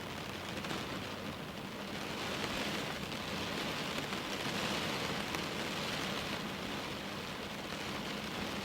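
Steady rain falling, a dense even hiss that grows a little heavier about two seconds in, then eases slightly.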